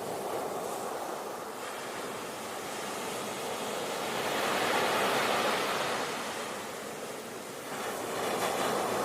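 Ocean waves washing in, a continuous surf wash that swells to a peak about halfway through, eases off, then builds again near the end.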